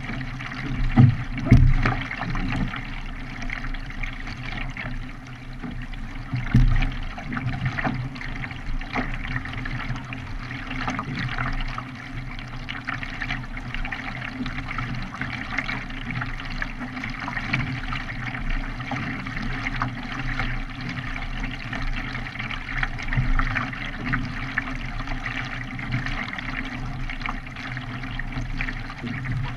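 Water splashing and trickling as a K1 racing kayak is paddled, with a few low thumps about a second and a half and six and a half seconds in.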